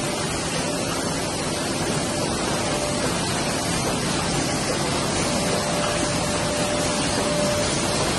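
Heidelberg SORSZ sheet-fed offset press running, a steady even machine noise with a faint tone that comes and goes.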